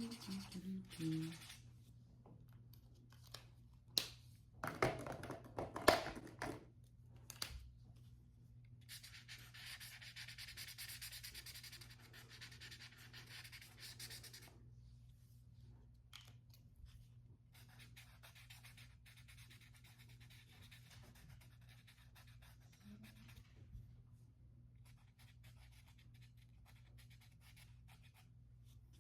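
Felt-tip markers scratching and rubbing across paper as a drawing is coloured in, with a long continuous stretch of colouring in the middle and fainter strokes later. A handful of sharp clicks and knocks come a few seconds in, and a low steady hum runs underneath.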